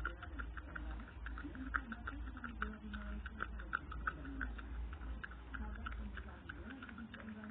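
A spoon stirring stiff clear-glue slime in a container, clicking and tapping against the container a few times a second; the slime has firmed up after extra activator and is breaking into pieces as it is stirred.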